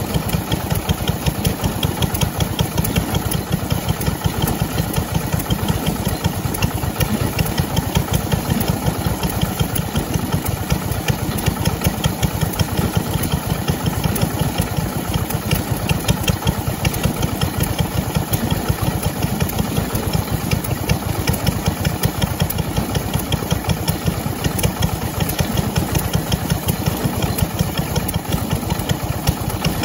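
Lister D single-cylinder four-stroke stationary engine running steadily at a fast, even exhaust beat, belt-driving a water pump.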